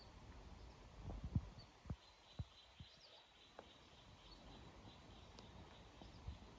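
Near silence: quiet room tone with a few soft, low thumps in the first half, and from about two seconds in a faint, rapid, high-pitched ticking.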